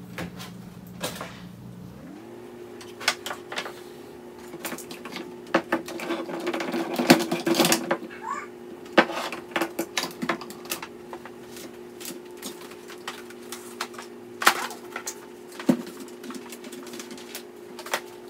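Monitor cables being unplugged and plastic handled: a run of irregular clicks and knocks, thickest in the middle, with a louder knock later on.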